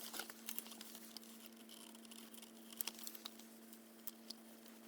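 Faint scattered clicks and crinkles of masking tape being peeled off the painted plastic of a Roomba, over a faint steady hum.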